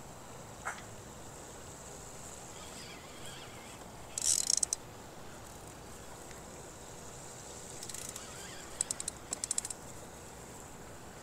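Spinning fishing reel clicking in short ratcheting bursts with a big fish on the line: one burst about four seconds in, then several quick bursts near nine seconds.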